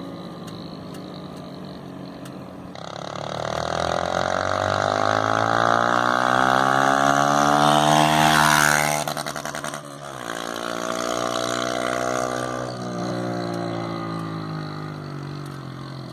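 Honda Titan 150 EX motorcycle's single-cylinder four-stroke engine running through a RONCAR ML Competition aftermarket exhaust. It idles, then is revved, the pitch climbing for several seconds to a loud peak. It drops quickly when the throttle is released, rises again more briefly about ten seconds in, and settles back toward idle.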